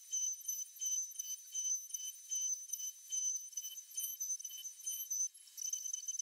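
High-pitched whine with overtones from a CNC router's spindle and drives cutting a pocket in plywood, swelling and fading irregularly as the bit moves, with a brief dip about five seconds in.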